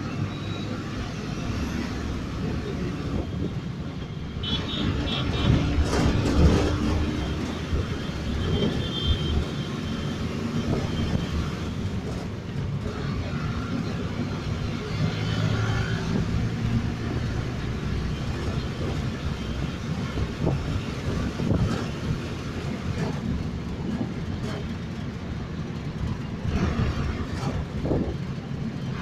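Ride noise aboard a moving Calcutta Tramways electric tram: a steady low rumble with scattered knocks and clatter, the sound of the tram running on its rails.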